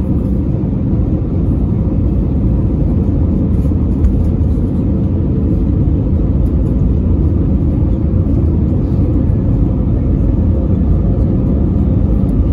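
Airbus A320-200 cabin noise during descent toward landing: a steady low rumble of the engines and airflow, heard from a window seat over the wing.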